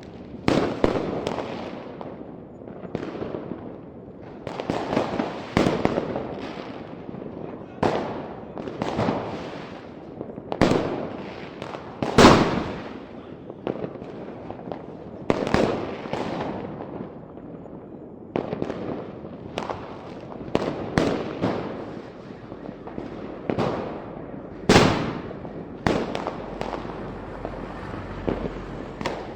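Fireworks going off: a steady run of sharp bangs, one every second or two, each trailing away in a rumble and crackle. The loudest bang comes about twelve seconds in.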